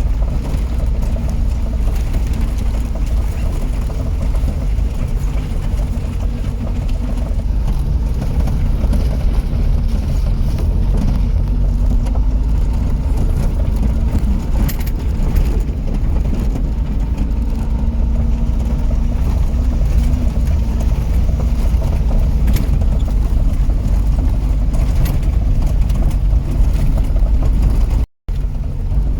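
Steady low rumble of a vehicle engine and road noise on a moving ride, with a brief gap near the end where the sound cuts out.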